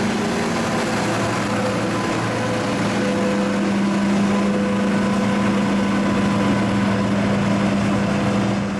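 John Deere combine harvester running steadily while harvesting corn: an even engine and machinery drone with a constant low hum.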